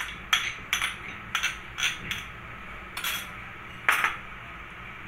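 A spoon clinking and scraping against cookware as ketchup is added and stirred into chicken in sauce: about eight irregular, sharp clinks, the loudest one about four seconds in.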